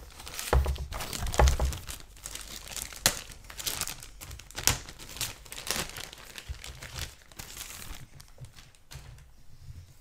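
Clear plastic kit bag crinkling and rustling as plastic sprues are handled and pulled out of it, with a couple of dull bumps in the first two seconds; the crinkling thins out after about eight seconds.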